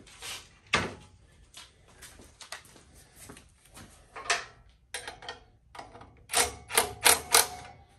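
Cordless drill-driver run in several short bursts about six seconds in, driving a bolt into a motorcycle frame's engine cradle. Before that come a few clicks and knocks as the tool is handled.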